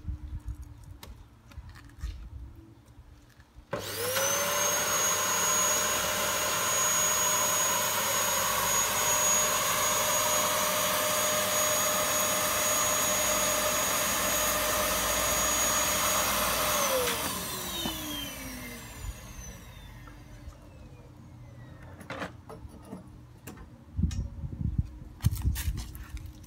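Domestic canister vacuum cleaner providing the suction for a homemade paving-slab lifter. It is switched on a few seconds in, spins up quickly to a steady whine and runs for about thirteen seconds. Then it is switched off and winds down with a falling whine. A few knocks follow near the end.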